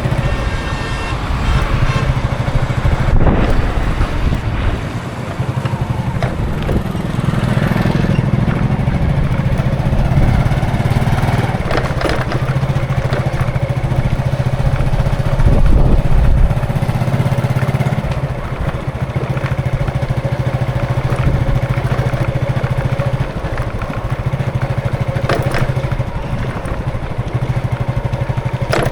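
Continuous road traffic: the engines of motorcycles and other vehicles running and passing, with a steady low engine hum and a few sharp knocks.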